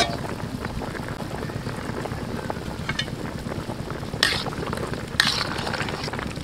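Large aluminium pot of oxtail stew boiling steadily with a constant bubbling hiss. A ladle stirs it, with two short scraping strokes about four and five seconds in.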